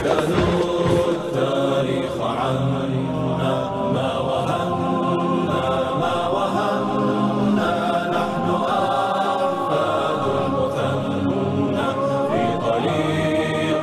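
Background music: a choir of voices chanting a nasheed in Arabic, steady and unbroken.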